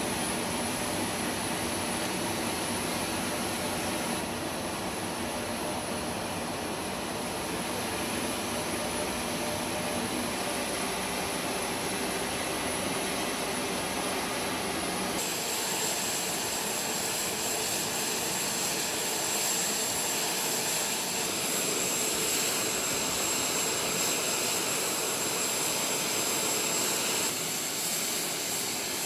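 Turboprop engines of a Lockheed WC-130J Hercules (Rolls-Royce AE 2100 turboprops) running steadily with a dense propeller-and-engine drone. About halfway through the sound changes abruptly and a high steady whine comes in, and it shifts again shortly before the end.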